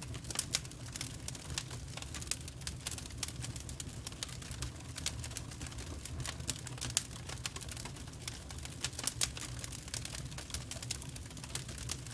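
Firewood logs burning, crackling and popping in quick irregular snaps over a steady low rumble.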